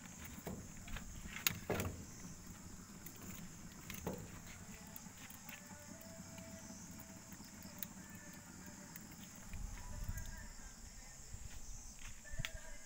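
Steady high-pitched insect chirring, with a few sharp knocks and handling noises in the first few seconds.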